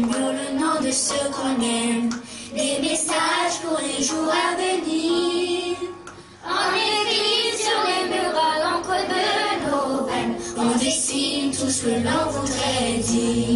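A group of children singing a song together on stage, with a brief break in the singing about six seconds in.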